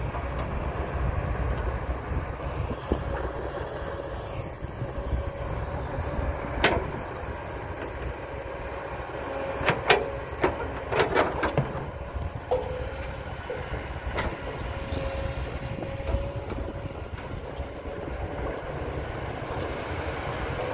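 Kobelco SK200 hydraulic excavator's diesel engine running steadily as it digs and swings its loaded bucket, with several sharp metal clanks, a few in quick succession about ten to eleven seconds in.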